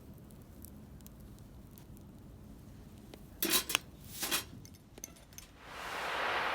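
Two short bursts of metal clinking and rattling from handled camping gear, about three and a half and four seconds in. After them comes a hiss that swells up near the end.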